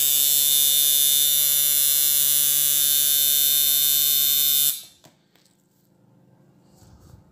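Coil tattoo machine running with no tape under the armature bar, its bare armature striking the coil: a loud, steady buzz that cuts off suddenly about two-thirds of the way through. This is the undamped noise that tape on the underside of the armature is meant to reduce.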